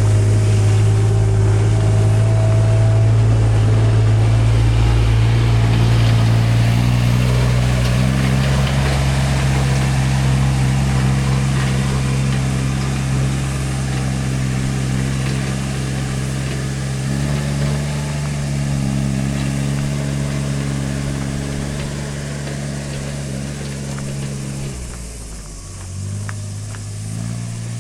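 Engine of a vehicle or work machine running close by, its pitch stepping up and down a few times as the revs change, then dropping away near the end.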